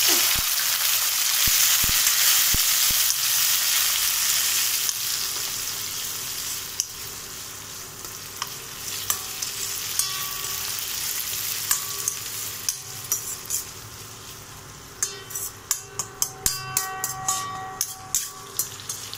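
Chopped tomatoes sizzling loudly in hot oil with fried onions in a stainless steel kadai. The sizzle dies down over the next ten seconds or so. Near the end, a metal spatula scrapes and clinks against the pan in quick strokes as they are stirred.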